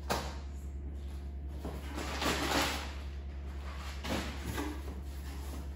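Short scraping and rustling sounds of items being handled and set down on a table, the longest a scrape about two seconds in, then two brief knocks about four seconds in, over a steady low hum.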